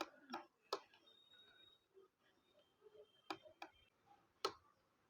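Plastic switch clicks from a battery table fan's power button being pressed repeatedly: three quick clicks, then a few more about three seconds in and one near the end, with no motor running, a fault the owner puts down to the button.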